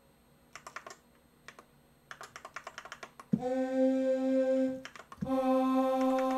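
Rapid clusters of clicks from the Korg Kronos's front-panel controls as the Tune value is changed. About three seconds in, the HD-1 engine's vocal sample sounds as a held middle C, twice, each note about a second and a half long. The pitch stays the same while the sample's tuning is shifted and transposed back, so only its formant, its nasal or throaty colour, differs between the notes.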